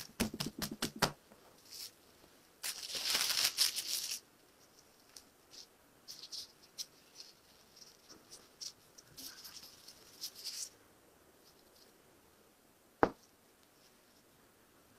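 Hands handling pastry dough wrapped in plastic film: a quick run of pats in the first second, then a dense rustle of the cling film. Later comes soft scattered crinkling of thin plastic gloves as the dough is pressed into metal tart tins, and one sharp knock about thirteen seconds in.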